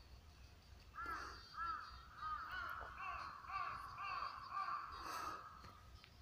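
A crow cawing over and over, about two short caws a second, starting about a second in and stopping after some four seconds.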